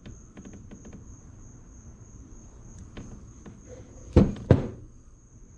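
Light metallic clicks and handling noise from the parts of a lowrider's hydraulic cylinder being worked out, with two sharp knocks about four seconds in, half a second apart. A steady high chirring of crickets carries on underneath.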